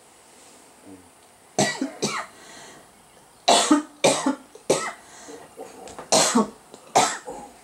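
A series of short, sharp vocal bursts, about seven of them, spread over the last six seconds.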